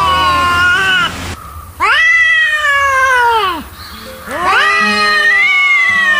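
Angry domestic cat yowling: long, drawn-out caterwauls that rise quickly and then slowly fall in pitch. One call ends about a second in, a second follows, and a third starts past the middle, with short gaps between them.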